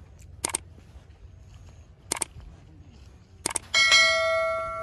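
A few sharp clicks, then one loud metallic ring near the end that fades away over about a second and a half.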